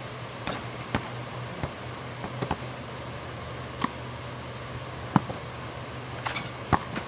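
Scattered sharp knocks and clanks of a basketball striking a portable hoop's rim and backboard and bouncing, with a quick cluster of rattling clinks near the end, over a steady low hum.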